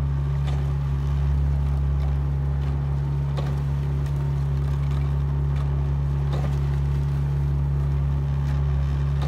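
Motorboat engine running steadily, a low even hum, with a few faint knocks about every three seconds.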